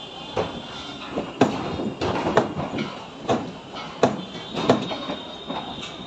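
A series of sharp knocks, about one a second, over a steady clattering background with a faint metallic ring.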